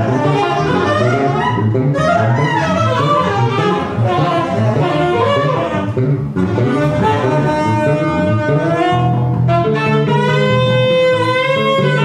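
Live improvised ensemble music: an electric bass plays under a sliding, wavering lead melody that settles into long held notes near the end.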